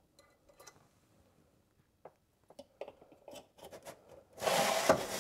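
Small clicks, taps and rubbing from handling a PVC cement applicator and a plastic drain fitting on a pipe, then a loud rustling scrape lasting under a second near the end.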